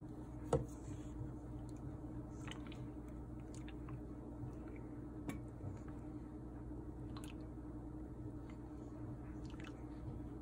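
Wooden spatula stirring milk as it heats in a pot, with scattered light clicks and scrapes against the pan, the sharpest about half a second in, over a steady low hum.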